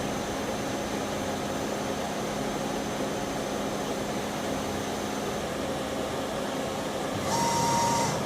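Okuma Crown 762 CNC lathe running with a steady machine hum and a faint high whine that stops about five seconds in. Near the end a short tone, under a second long, sounds together with a burst of hiss.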